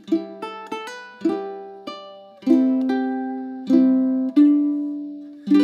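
Ukulele played solo: a quick run of plucked notes, then chords struck about once a second, each left to ring out and fade.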